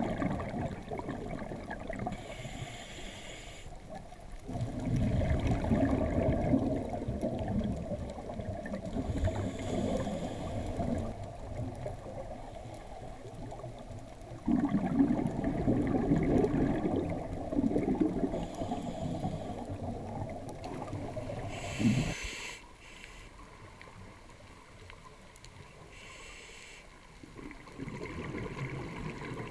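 Scuba diver breathing through a regulator, heard underwater: short hissing inhalations alternate with longer, louder bursts of low, gurgling exhaled bubbles, a few breath cycles in all.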